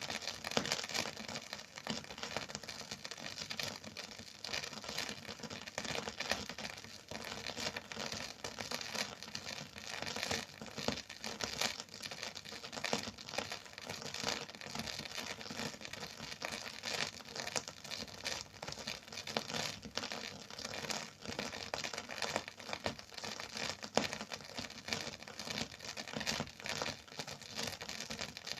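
Surface crackle of a phonograph record playing with no music: a dense, even run of fine crackles over a light hiss, with a few louder pops, one of them near the end.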